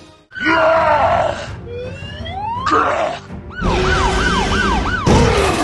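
Cartoon sound effects over music: a rising glide in pitch, then a siren wailing quickly up and down, about four wails in a second and a half, ending on a falling tone.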